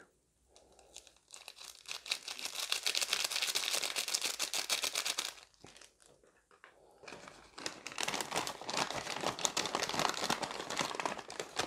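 Close-up crinkling of packaging: a small sachet of chili seasoning powder being emptied into a paper French-fries bag, then the paper bag rustling and crumpling as it is handled and folded shut. Two long stretches of dense crinkling with a short pause between them, about five seconds in.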